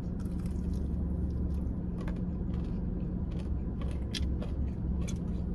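Chewing a fried chicken strip dipped in ranch: scattered short crunchy clicks and mouth sounds, over a steady low hum.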